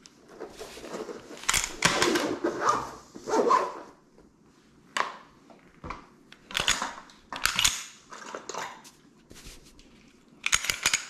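Glock 19 pistol slide being cycled by hand to clear the chamber: a series of sharp metallic clacks and sliding rasps, with handling noise between them.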